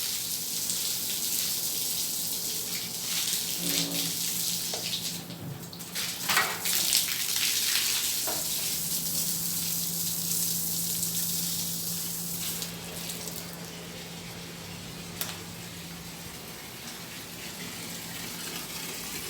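Water spraying from a garden hose, a steady hiss, washing sandstorm dust off the ground around a house. A steady low hum runs underneath from about four seconds in, and the spray gets quieter about two-thirds of the way through.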